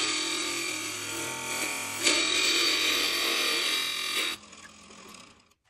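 A spinning wooden stool leg being shaved to a taper in a plywood taper jig: a steady, loud shaving and machine noise that swells about two seconds in. It cuts off sharply about four and a half seconds in, leaving a faint sound that dies away.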